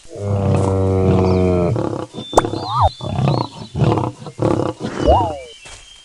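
A large animal's loud roaring call, held for about a second and a half, then followed by shorter grunts and a few quick calls that rise and fall in pitch.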